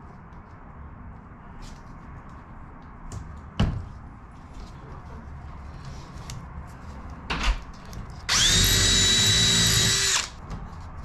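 Cordless drill running at a steady, even whine for about two seconds near the end, drilling into the aluminium wing-spar parts. Before it come a few light knocks of the parts being handled, one sharper knock a little over three seconds in and another about seven seconds in.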